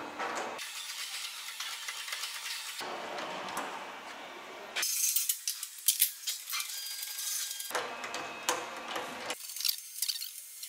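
Workshop handling noise from work on a truck: light metallic clicks, knocks and rattles. The sound shifts abruptly several times from one bout of clatter to another.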